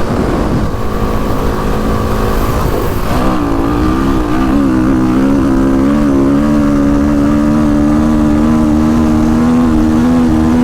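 Kawasaki KX450X dirt bike's single-cylinder four-stroke engine pulling hard at high revs. About three seconds in, its pitch climbs and wavers, then it holds a steady high note at speed, with wind rush underneath.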